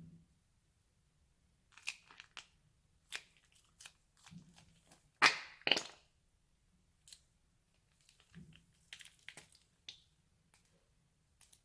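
Crunchy slime being squeezed and worked by hand, giving a scattered run of sharp crackles and pops with a few soft thuds. The loudest crackles come as a pair about five to six seconds in.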